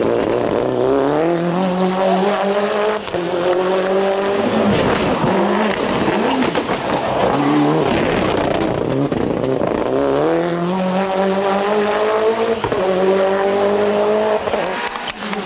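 Toyota Celica GT-Four ST185 Group A rally car's turbocharged 2.0-litre four-cylinder (3S-GTE) engine revving hard under full acceleration. The pitch climbs and drops back at each gear change, several times over.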